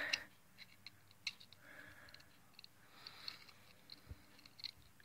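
Faint scattered clicks of small metal Swiss Army knife pliers working at a child's loose tooth, with soft breaths and one dull low knock about four seconds in.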